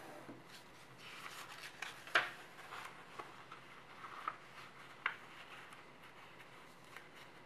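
A sheet of 80 g/m² paper rustling and crinkling as it is folded over and the crease pressed flat by hand, with a few sharp crackles, the sharpest about two seconds in and another about five seconds in.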